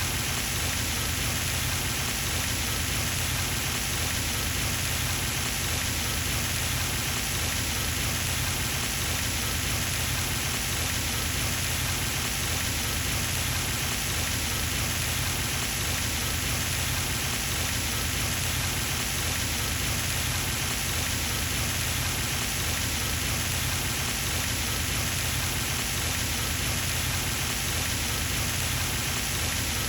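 Pond fountain splashing steadily, its spray falling back onto the water in an even, unbroken patter.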